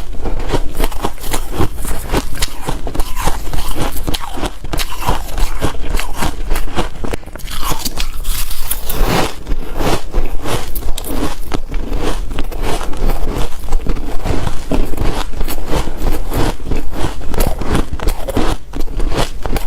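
Close-miked biting and chewing of hard shaved ice and crushed ice: a dense, rapid crunching and crackling with a squeaky edge. There is a brief softer hiss a little under halfway through.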